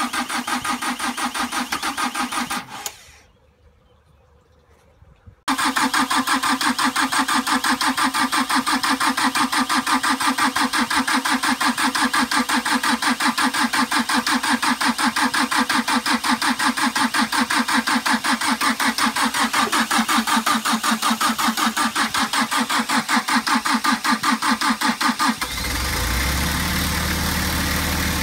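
Small diesel engine of a road train's diesel-driven air-conditioning unit, which drives a Bock refrigerant compressor, being started repeatedly. It runs with a fast rhythmic pulsing and stops about three seconds in. A couple of seconds later it starts again abruptly, and near the end its sound changes to a steadier, deeper running.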